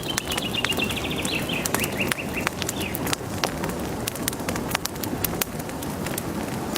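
Campfire crackling, with frequent sharp pops and snaps over a steady low rush of burning wood. A small bird sings a quick descending trill in about the first two and a half seconds.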